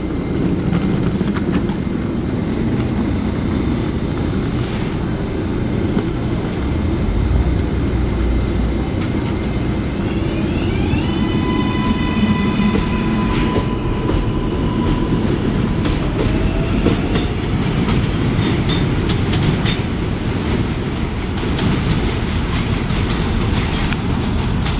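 Kawasaki R188 subway train pulling out of the station: a steady low rumble, then about ten seconds in the traction motors whine up in pitch in steps as the train accelerates. This is followed by the wheels clicking over rail joints as the cars roll past.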